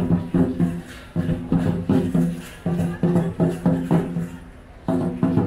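Music: a rhythmic run of short, low pitched notes, pausing briefly about a second in and again near the end.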